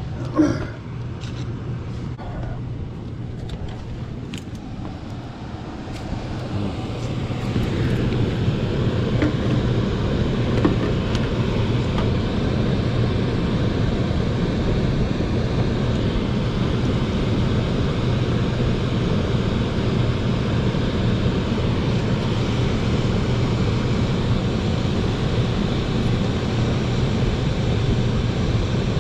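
Steady low hum and rumble of HVAC equipment running. It gets louder about seven seconds in. A few clicks and a knock come near the start.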